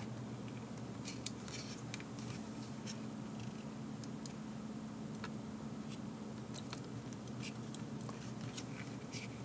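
Faint, scattered small clicks and taps of fingers handling a GPS unit's circuit board and seating its microphone cable, over a steady low hum.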